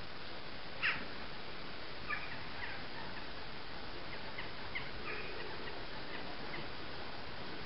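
Birds calling: one sharp short call about a second in, then a scatter of fainter short chirps over a steady background hiss.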